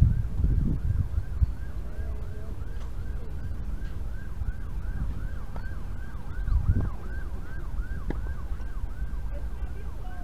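A siren-like warbling tone, dipping and rising about four times a second without a break. Low wind rumble on the microphone swells twice, about a second in and again near seven seconds.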